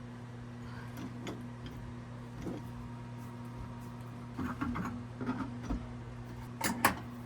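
Scattered light clicks and taps of hand tools and metal fittings being worked while disconnecting a water heater's connections, over a steady low hum. The taps come in small clusters, the busiest a little past the middle.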